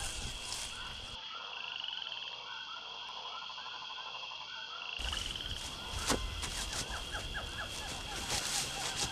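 Outdoor animal chorus in woodland: many short calls repeating over one another, over a steady high-pitched hum. There is a single sharp click about six seconds in.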